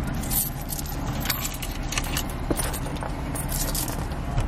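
Small metal objects jingling and clicking in quick, irregular bursts as hands handle them inside a car, over the low steady rumble of the idling engine.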